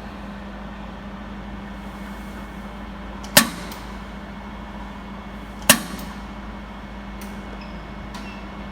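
Two sharp snaps from a 200 W pulsed YAG jewelry laser welder firing on gold or silver, about two seconds apart, each dying away quickly, over a steady low machine hum.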